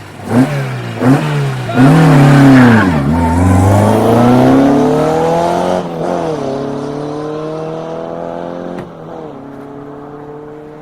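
Rally car engine blipped twice on the start line, then launched at full throttle and accelerating hard away, the engine pitch climbing and dropping at gear changes about a second, four seconds and seven seconds after the launch. It fades as the car pulls away.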